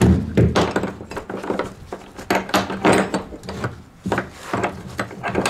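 Automatic self-retracting ratchet strap being handled: its ratchet mechanism clicks and rattles as the webbing is pulled out. Mixed in are knocks of the metal ratchet and hook against the trailer's plywood floor and a recessed lashing ring.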